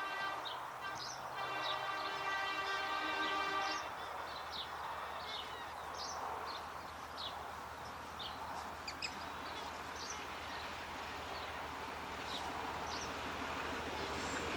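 Alco locomotive's multi-tone horn sounding a long blast that ends about four seconds in. Birds then chirp over a faint rumble from the approaching train.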